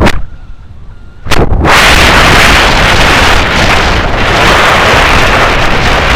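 Strong wind buffeting the microphone in a loud, gusty rush. It drops away abruptly just after the start, for about a second, then slams back in and stays loud.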